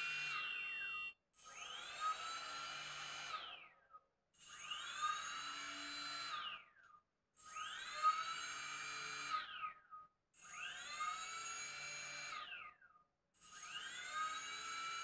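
Hexacopter brushless motors run one after another in a sequence motor test. Each one spins its propeller up with a rising whine, holds steady for about two and a half seconds, then winds down. A short gap comes before the next motor, giving about five runs, each with a high steady tone over it.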